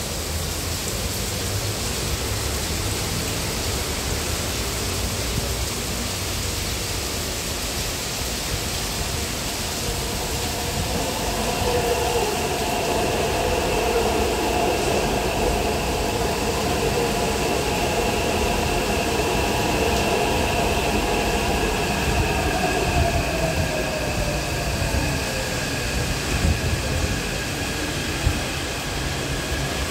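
Taipei Metro train pulling into an elevated station platform. Its running noise and motor whine build from about ten seconds in. The whine falls in pitch as the train brakes to a stop, and steady high tones carry on as it stands at the platform.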